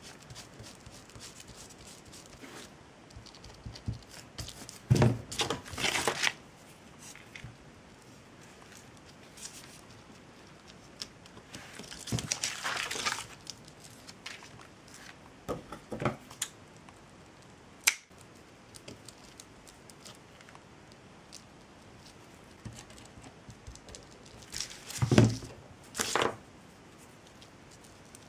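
Handling noises of craft work with jute twine and glue at a table: a few short bursts of rustling and crinkling and a sharp click about two-thirds of the way through, with quiet stretches between.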